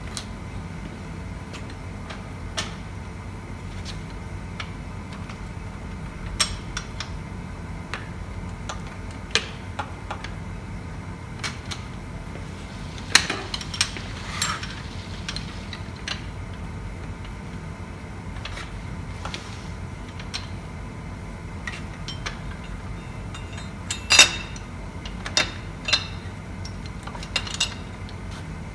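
Scattered clicks and light clinks of small metal parts and tools being handled during mounting work, with a cluster about halfway through and another near the end, over a steady low hum.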